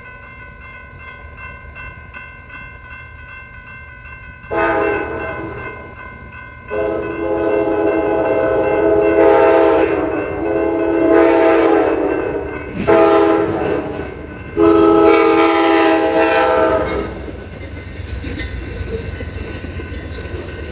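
Amtrak locomotive's multi-chime air horn sounded by the engineer in four loud blasts: a short one about four seconds in, a long one, then two shorter ones ending about seventeen seconds in. A train's low rumble and wheel clatter on the rails run underneath.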